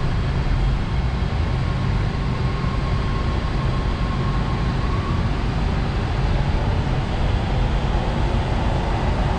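Los Angeles Metro heavy-rail subway train pulling out of an underground station and gathering speed into the tunnel, heard from inside the car: a steady rumble of wheels and running gear, with a faint high whine rising a few seconds in.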